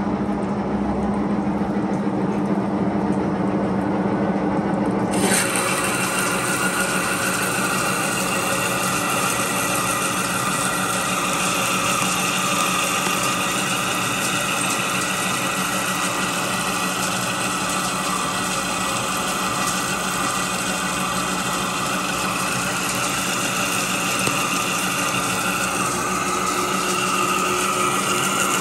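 Monarch engine lathe running with its gear drive humming; about five seconds in, the LNMX carbide insert bites into the 1045 steel shaft and a steady, loud cutting noise sets in. This is a heavy 0.300-inch-deep roughing pass under flood coolant.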